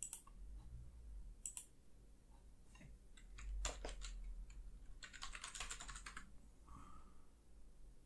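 Faint computer keyboard typing: a few scattered key clicks, then a quick run of keystrokes about five seconds in as a password is typed.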